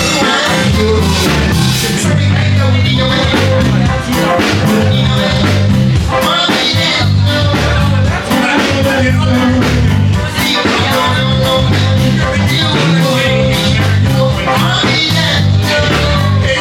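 Background music: an upbeat song with singing over a steady bass beat.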